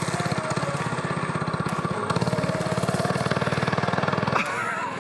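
Small Predator single-cylinder engine running steadily under throttle as it pulls a drift trike, a fast even firing beat; the sound drops off somewhat near the end as the trike moves away.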